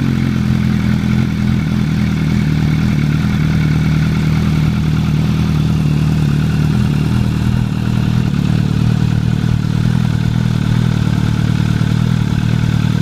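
MV Agusta F4 1000's inline-four engine idling steadily through a QD "Power Gun" aftermarket exhaust with four dragster-style stainless outlets.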